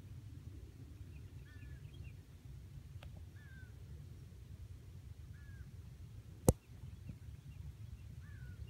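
Low steady wind rumble over open water, with a bird calling in short downslurred notes every two seconds or so. A single sharp knock about six and a half seconds in.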